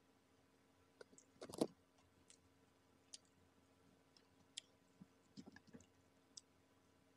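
Faint, scattered clicks of eating: mouth smacks while chewing fried chicken and the crispy coating crackling as pieces are handled and pulled apart, the loudest little cluster about a second and a half in.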